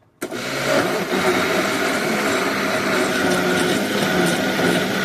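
Kitchen blender switching on abruptly and running at a steady speed, whipping used cooking oil with a caustic soda solution into liquid soap batter.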